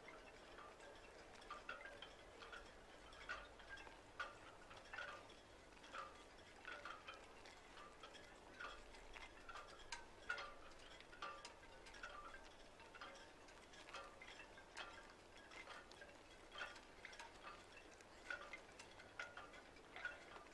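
Faint, irregular light chiming or tinkling, a few short pings a second over a low hiss.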